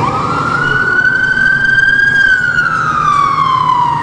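Toy fire ladder truck's electronic wail siren, its pitch rising for about two seconds and then falling slowly, over a low steady rumble.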